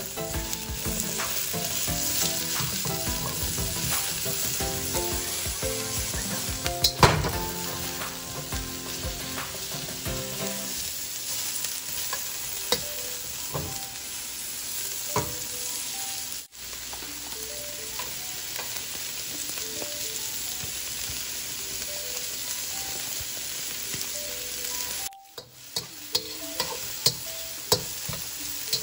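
Garlic and sliced onion sizzling in hot oil in a wok, with a metal spatula scraping and clicking against the pan as it stirs. The sizzle is louder for the first ten seconds or so.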